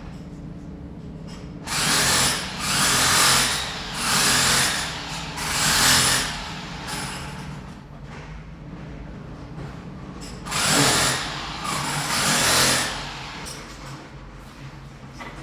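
Power drill running in short bursts, four in quick succession, then two more after a pause of a few seconds, over a steady low background hum.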